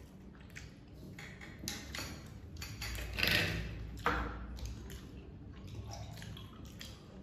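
Close eating sounds of people eating rice and chicken with their fingers: lips smacking, chewing and fingers squishing rice on plates, as short repeated clicks. A louder rustle comes about three seconds in, then a sharp knock just after four seconds, as a plastic water bottle is handled and drunk from.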